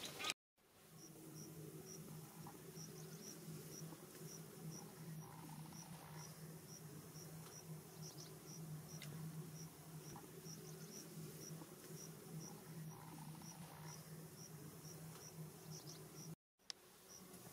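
Faint insect chirping in a steady, even rhythm, about two to three high-pitched chirps a second, over a low steady hum.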